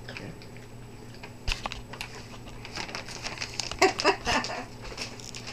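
Dog chewing and gobbling a piece of pepperoni: scattered small clicks and crinkly mouth noises, with a couple of short voiced sounds about four seconds in.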